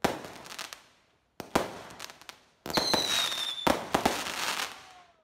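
Aerial fireworks bursting: a sharp bang roughly every second, each trailing off into crackle. In the middle, a high whistle holds for about a second, dropping slightly in pitch, before the next bang.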